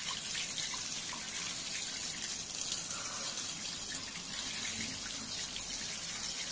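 Tap water running steadily into a washbasin, splashing over the head of a beard trimmer held under the stream to rinse it.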